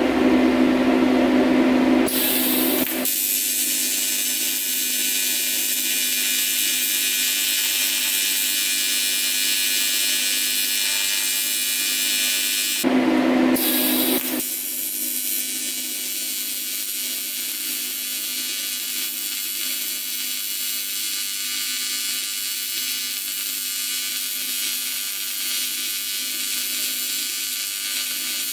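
AC TIG welding arc buzzing steadily on an aluminum wheel rim while filler rod is added to a crack. A loud steady hum comes first, and the arc starts about two to three seconds in. The arc breaks off briefly about thirteen seconds in, with the hum returning, and then the buzzing resumes.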